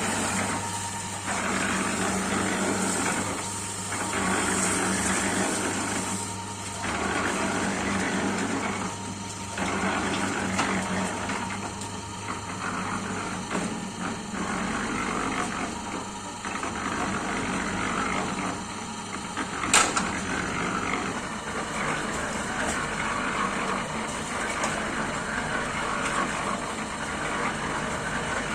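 Mini concrete mixer running, a 350-litre drum type: its motor hums steadily while the load tumbles in the turning drum, the churning swelling and easing every two to three seconds. One sharp knock about two-thirds of the way through.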